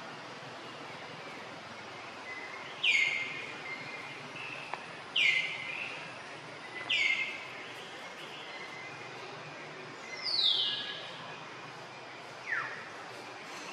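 A bird calls five times, each call a short, sharp downward-sliding whistle, about two seconds apart. The fourth call starts higher and lasts longer, and the last one is lower. A steady outdoor hiss runs underneath.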